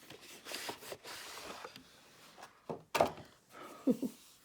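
Hands handling and unwrapping a journal's packaging: soft rustling, then a few sharp taps, the loudest about three seconds in and two more near the end.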